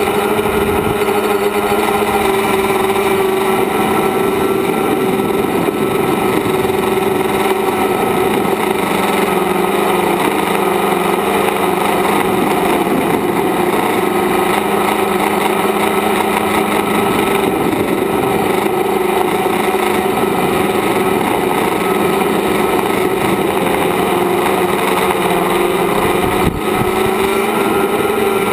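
Multirotor drone's electric motors and propellers running in flight, heard from its onboard camera: a loud, steady drone of several held tones that drift slightly as the throttle changes. There is a brief click near the end.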